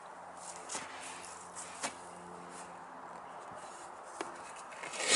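Scattered sharp knocks and clicks of hand tools on the wheel rim as a clincher tyre bead is pried off, with the loudest knock near the end.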